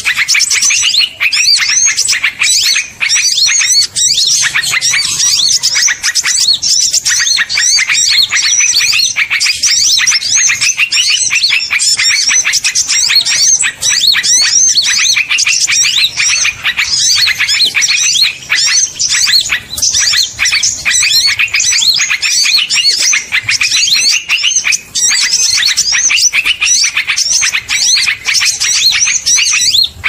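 Small-bird lure call (suara pikat burung kecil): a recording of many small birds chirping in a dense, nonstop chorus of quick high chirps and twitters, the noisy flock call bird hunters play to draw small birds in.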